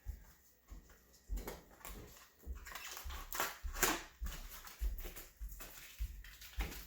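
Irregular rustling and crinkling with light knocks as a new 26-inch bicycle inner tube is handled.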